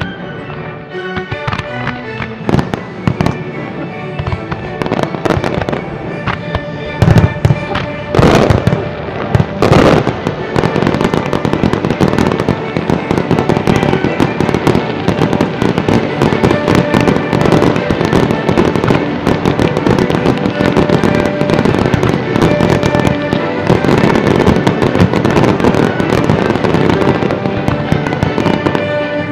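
Fireworks display set to music: aerial firework shells bursting in a steady stream of bangs over a recorded music soundtrack, with a cluster of the loudest bangs about seven to ten seconds in.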